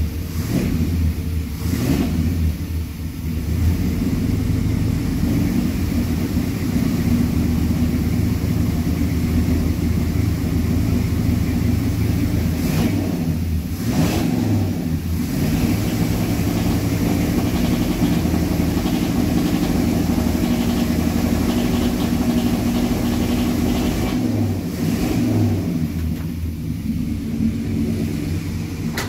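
1987 Chevrolet square-body pickup's throttle-body-injected engine running steadily with a slight miss, which the owner puts down to the injectors still flooding.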